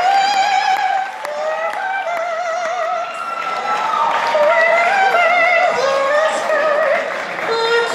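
A woman singing solo into a microphone through the hall's sound system, in a high voice with sustained notes and a pronounced wavering vibrato.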